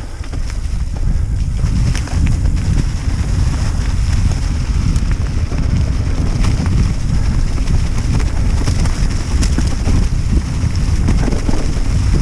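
Wind buffeting a helmet or bike-mounted action camera's microphone during a mountain-bike ride, a dense rumble throughout, with scattered clicks and knocks from the bike running over rough trail.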